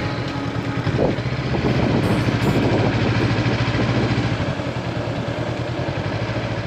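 Honda CB500X motorcycle's parallel-twin engine running steadily at an even pitch.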